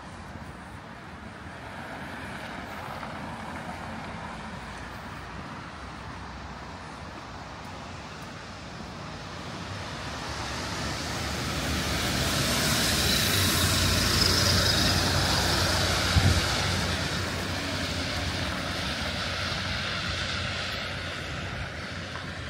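City street traffic: a motor vehicle passes close by, its noise swelling over several seconds to a peak about two-thirds of the way in and then fading, with a brief thump just after the peak.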